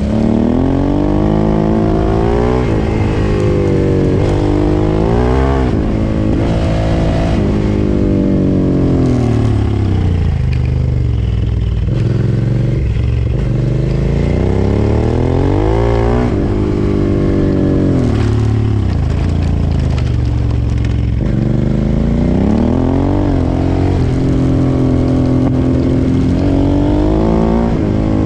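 Suzuki V-Strom 650's 645 cc V-twin engine under way on a dirt road, its revs climbing and dropping over and over with the throttle.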